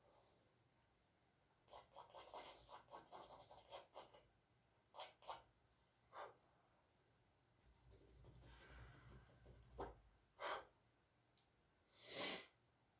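Charcoal scratching on canvas: a quick run of short drawing strokes, then a few single strokes and a longer stroke near the end.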